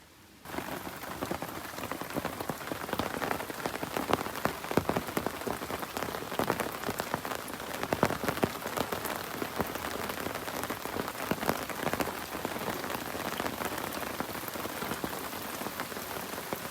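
Steady rain, with many close drops striking a surface; it starts about half a second in.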